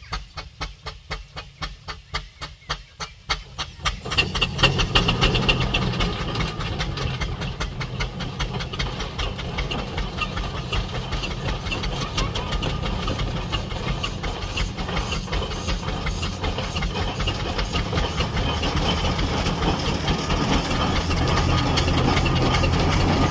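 Steam engine running with rapid, even beats. About four seconds in, a loud hiss of steam joins them and grows slowly louder.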